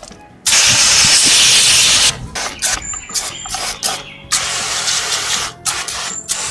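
Water jet from a 12V electric pressure-washer pump hissing against a motorcycle wheel to blast off brake dust. One long spray, then several short bursts with gaps between them, then steadier spraying again.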